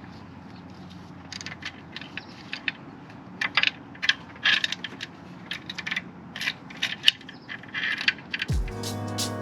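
Ratchet wrench clicking and metal tools clinking in irregular bursts. Music with deep sliding bass notes starts near the end.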